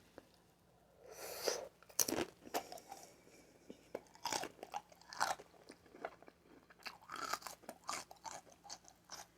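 A person chewing a mouthful of scallop with raw cucumber and onion: irregular wet crunches and mouth clicks, starting about a second in.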